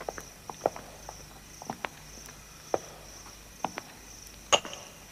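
Footsteps: a run of irregular soft steps, about one every half second to second, with a sharper knock near the end. A faint steady high-pitched pulsing runs behind them.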